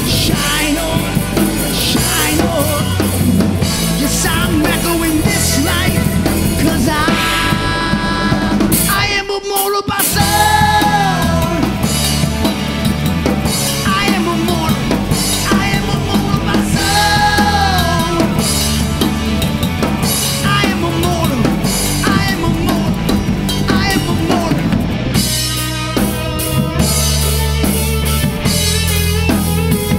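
Rock band playing live: drum kit with bass drum and snare, electric guitar and bass guitar, with a brief break in the playing about nine seconds in.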